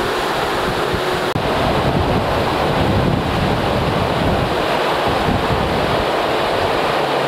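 Steady rushing wind and sea noise on the open deck of a ferry under way, with wind buffeting the microphone.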